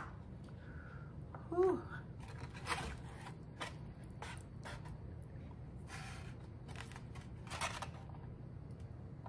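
A metal fork scraping and scooping food out of a styrofoam takeout box onto a plate, making a few short, soft scrapes and rustles. There is a brief vocal sound about a second and a half in.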